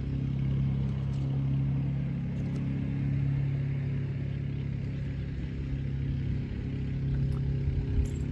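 A steady low machine hum, even in pitch throughout, with a few faint clicks over it.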